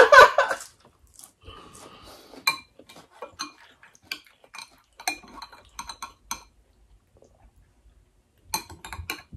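Metal spoons clinking and scraping against glass serving bowls and plates as food is scooped out, in a scatter of light clicks. After a pause of about two seconds, a last quick cluster of clinks comes near the end.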